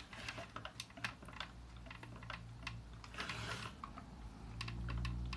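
Light, irregular clicks and taps of hard plastic as a transforming action figure is handled and rocked on its feet.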